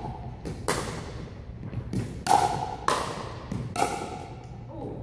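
Pickleball rally: paddles striking the plastic ball and the ball bouncing on the hardwood floor, a quick series of sharp pops, several with a brief ringing tone. Each hit echoes in the large gym.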